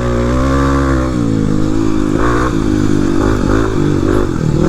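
Dual-sport dirt bike's single-cylinder engine under way, held steady for about a second and then with the revs dropping and picking up again several times as the throttle is worked.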